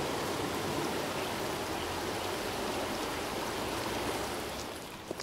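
Shallow creek water rushing and rippling over rocks in a steady wash, easing off slightly near the end.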